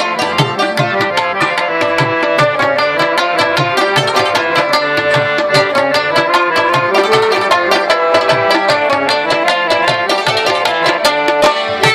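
Instrumental interlude of a Pashto folk ghazal: a rabab plucked in quick runs over held harmonium notes, with tabla strokes keeping a steady beat.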